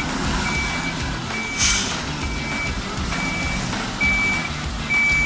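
Reversing alarm on a heavy machine beeping about once a second, with a diesel engine rumbling underneath and a short hiss about one and a half seconds in.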